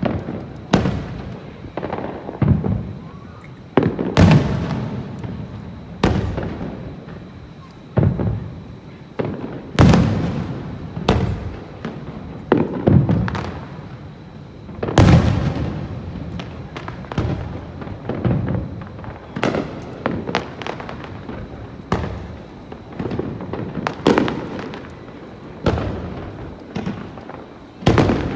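Aerial fireworks bursting in quick succession, sharp bangs every second or two with each boom rumbling and echoing away, the strongest about ten and fifteen seconds in.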